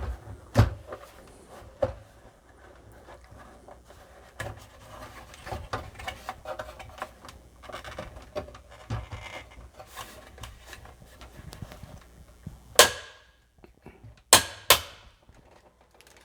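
Plastic case of a Commodore 64 being worked open by hand, with small clicks and rubbing, then three loud, sharp cracks near the end as the case halves snap apart without breaking.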